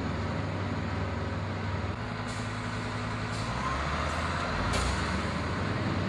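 Asphalt distributor truck's engine running steadily, with four short hissing bursts in the second half.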